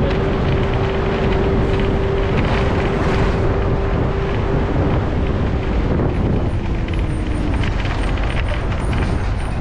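Bus engine and road noise heard from inside a moving bus, with a steady whine that fades out about six seconds in and a lower one sliding down after it.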